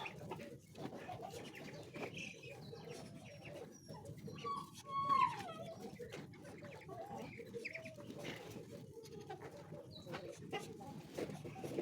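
Domestic chickens clucking together as a flock, with one louder call about halfway through that slides down in pitch.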